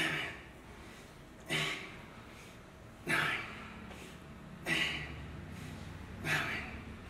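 A person breathing out sharply with each repetition of a weight exercise: five short, forceful exhalations in a steady rhythm, about one every second and a half.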